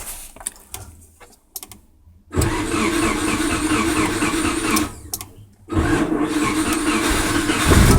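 A few light clicks, then the Subaru EJ16 flat-four is cranked on the starter for about two seconds, stops briefly, and is cranked again. Near the end it catches and runs louder with a fast, rapid pulsing: the blown engine knocking.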